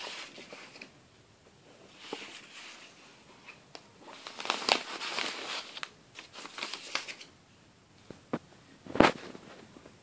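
Sheets of drawing paper rustling and sliding as they are handled, in several irregular bursts, with two short sharp taps near the end, the second the loudest.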